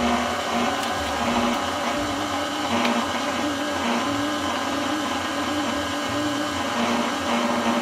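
KitchenAid Classic stand mixer running steadily, its beater mixing wet cookie dough of brown butter, sugars, eggs and milk in a glass bowl; a steady motor hum whose pitch wavers slightly.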